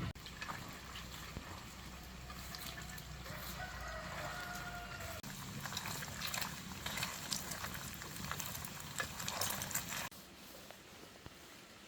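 Farm animal sounds with a run of sharp clicks and knocks from about six seconds in, over a low hum that fades out about halfway. The sound drops off suddenly near the end.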